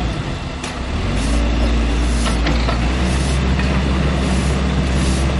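Kobelco mini excavator's diesel engine running, easing off briefly and then picking up about a second in as the hydraulics work the bucket, with a few sharp knocks.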